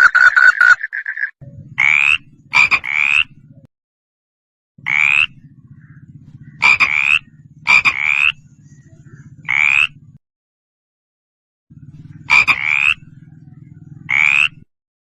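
A frog croaking: short calls, singly and in quick pairs, repeated every second or few, over a low steady hum. The first second holds a different fast, rapidly pulsed call that cuts off.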